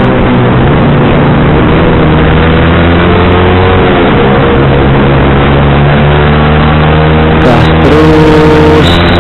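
Yamaha sport motorcycle engine, fitted with a racing exhaust, running steadily under way from the rider's seat, its note dipping briefly and picking up again about four seconds in, over a steady rush of wind noise.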